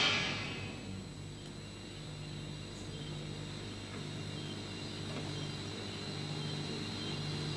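The tail of a dramatic drum hit dies away in the first second, leaving a low steady hum with a faint slow pulse about once a second.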